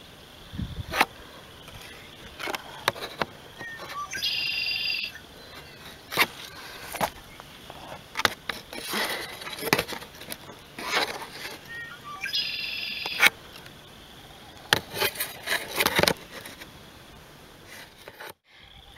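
Plastic milk-jug planters being handled close up, giving scattered clicks and crinkles. A bird calls twice, for about a second each time, about four seconds in and again about twelve seconds in.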